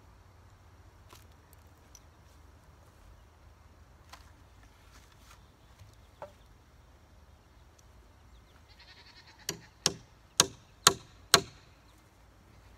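Hammer nailing a reclaimed-wood brace into a wooden shed frame: five sharp, ringing blows about two a second near the end, after a few faint knocks and clicks of the boards being handled.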